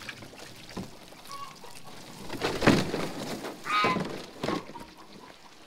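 A hard-plastic kiddie pool being tipped out and set back down on dry leaf litter: a few thumps and rustles, the loudest about two and a half seconds in.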